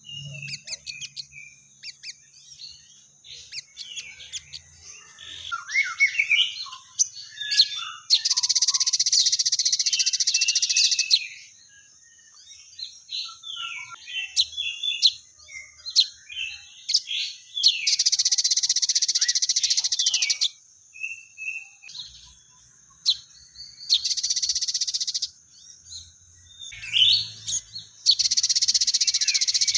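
Crimson sunbird (sogon) singing: rapid high chirps and short slides, broken by long, dense buzzing trills of about three seconds that come four times. The song is full of sparrow-like fighting chatter ('gereja tarung' material).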